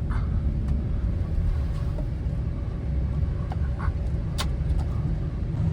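Engine of a four-wheel-drive vehicle running under load as it powers out of deep snow, a steady low rumble with a few scattered clicks.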